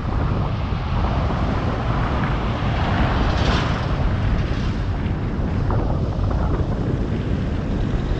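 Wind buffeting a GoPro Hero 7 Black's microphone while cycling: a loud, steady low rumble, with a brief swell of hiss about halfway through.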